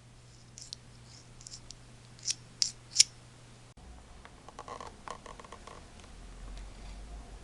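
Three sharp metallic clicks from a hand tool, the last the loudest. After an abrupt change in background hum, small metal parts clink and rattle lightly.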